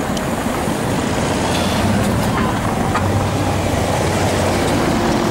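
Two Tatra trams approaching on street track make a steady low rumble that grows slightly louder as they come closer, mixed with passing street traffic.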